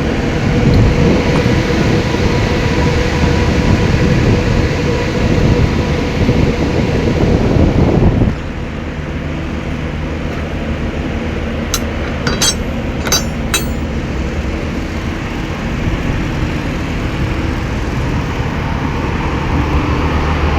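Truck-mounted Thermo King refrigeration unit running steadily. About eight seconds in, the sound abruptly drops to a quieter, smoother running, and four sharp clicks come a few seconds later.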